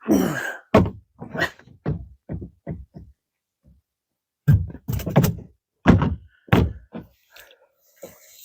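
A run of irregular thunks and knocks against the kayak, in quick clusters with a pause of about two seconds in the middle.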